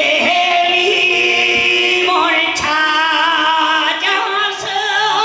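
A man singing through a microphone, holding long, wavering notes in a slow ballad melody.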